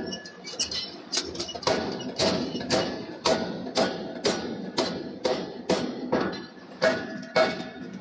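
Steel being forged under repeated hammer blows, about two strikes a second, each with a short metallic ring.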